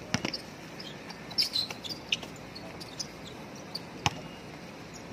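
Basketball play on an outdoor court: scattered sharp thuds of the ball bouncing and striking, the loudest about four seconds in, with a few brief high-pitched squeaks around the middle.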